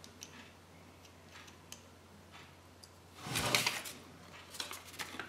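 Small plastic toy parts being handled: faint scattered clicks, then a louder rattling scrape a little past three seconds in, and a few more small clicks near the end.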